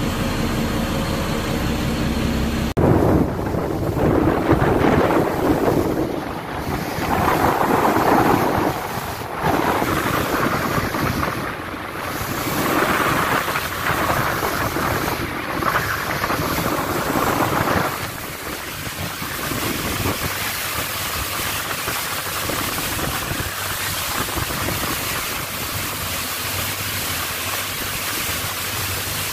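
Motorboat under way on open water: a steady engine hum for the first few seconds, then a sudden rush of wind buffeting the microphone over water noise, gusting hard for about fifteen seconds before settling into a steadier rush.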